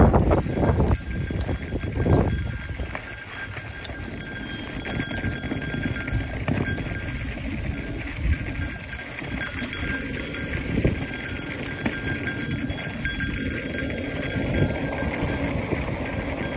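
Mountain bike rolling fast over a dirt trail: tyres on loose dirt and the bike rattling and jingling over bumps, with several hard knocks in the first two seconds, then a steady rumble.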